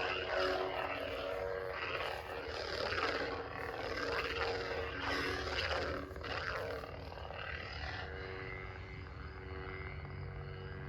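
Lightsaber hilt's sound-font hum playing through its built-in speaker, with swing whooshes that swell and fade over the first seven seconds or so, then a steadier hum.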